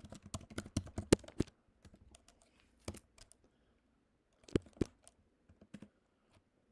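Typing on a computer keyboard: a quick run of keystrokes in the first second and a half, then scattered, sparser keystrokes, with two louder ones a little past the middle.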